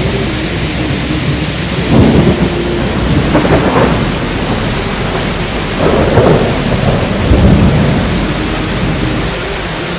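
Steady heavy rain, with four low rumbling swells rising out of it about two, three and a half, six and seven and a half seconds in.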